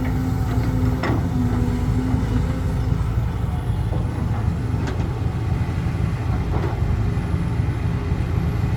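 Heavy diesel engines of an excavator and dump truck running steadily under load, with a few short knocks.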